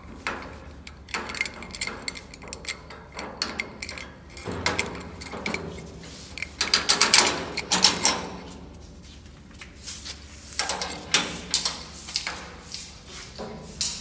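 A key turning in a padlock, the padlock being worked off the hasp of a slatted door, and the door being opened: a run of metal clicks, scrapes and rattles, loudest about seven seconds in.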